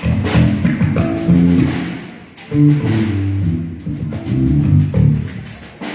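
Live band playing through the hall's PA during a sound check: low bass notes and guitar over drum hits, in short phrases that start abruptly, dip about two seconds in and pick up again.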